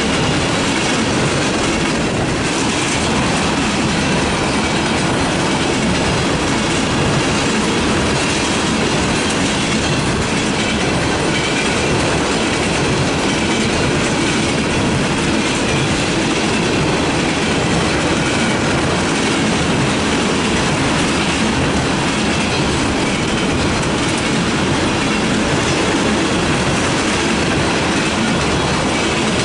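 Freight train of black tank cars rolling past: the steady, loud rumble and clatter of steel wheels on rail, unchanging throughout.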